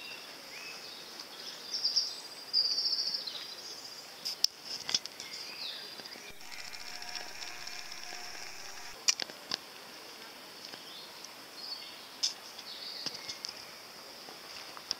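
Outdoor garden ambience with high chirping birdsong, including a rapid trill a couple of seconds in, and a few scattered sharp clicks.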